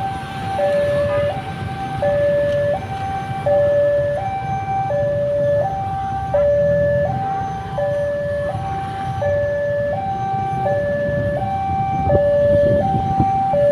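Railway level-crossing warning alarm sounding a steady two-tone hi-lo signal, each tone held about two-thirds of a second, warning that a train is approaching. A low rumble of traffic runs underneath.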